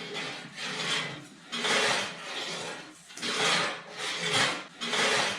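Rough rasping, scraping strokes on wood, repeated about once a second with short gaps between them.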